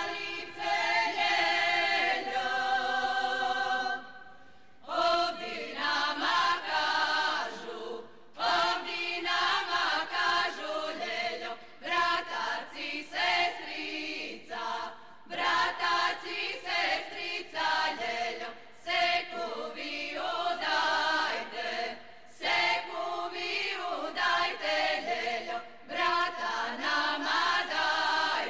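A women's group singing a Slavonian kraljice folk song a cappella, in phrases of a few seconds each with short breaks between them.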